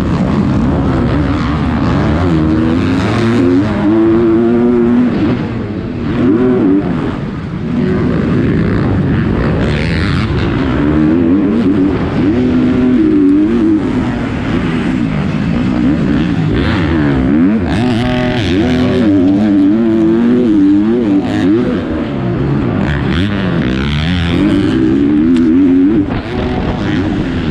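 A 250cc four-stroke motocross bike heard from on board at race pace. The engine revs up and falls off again and again through the corners and jumps.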